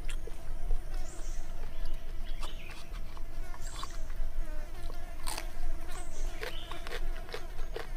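Insects buzzing steadily in the forest, with short high chirps recurring about once a second, scattered sharp clicks and the smacking of a man eating roasted pork skin, and a low rumble underneath.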